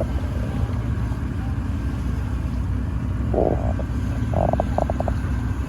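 Sightseeing tour boat's engine running with a steady low rumble, heard from on board while under way.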